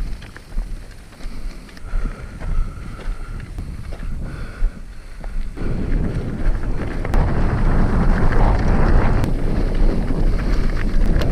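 Wind buffeting the microphone along with a hardtail mountain bike rolling over rocky ground, with scattered clicks and rattles; it gets much louder about halfway through.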